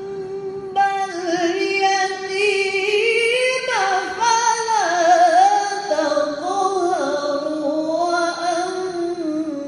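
A woman's voice chanting Quranic recitation in the melodic, drawn-out tajwid style, with long held notes and ornamented glides. The line climbs in pitch over the first few seconds, drops about four seconds in, then wavers and carries on.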